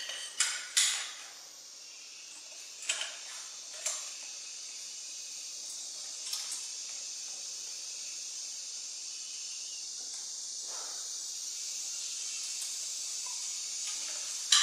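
A few light clicks and taps as wires and small metal terminal fittings are handled during wiring, over a steady high hiss.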